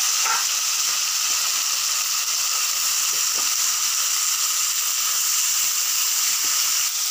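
Raw chicken pieces frying in hot oil in a wok: a steady sizzling hiss.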